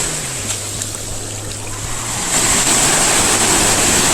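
Sea waves washing onto a beach, a steady rushing noise with no speech over it.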